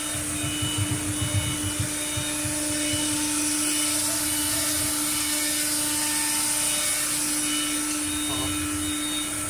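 1325 CNC router running under test: the spindle gives a steady high hum with a hiss over it as the machine moves. Irregular low knocks come through in the first couple of seconds, then it runs evenly.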